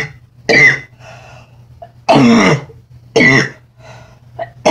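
A woman coughing hard in a fit: three loud coughs roughly a second apart, then a smaller one near the end.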